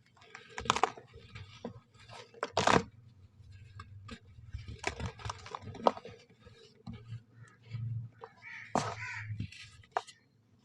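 Clumps of soft brown sand being crumbled and crushed, with many short crisp crunches and crackles at irregular intervals.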